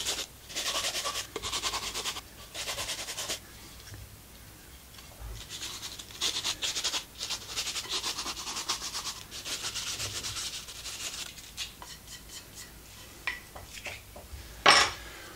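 Sandpaper wrapped around a carpenter's pencil rubbed in quick back-and-forth strokes in notches cut around a wooden saw arm, smoothing their sharp edges; the rubbing comes in spells and dies away over the last few seconds. A single knock near the end.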